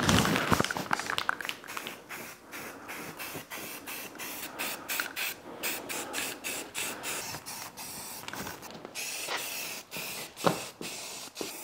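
Aerosol spray-paint can spraying in many short bursts of hiss, a few a second. There is a single sharp knock near the end.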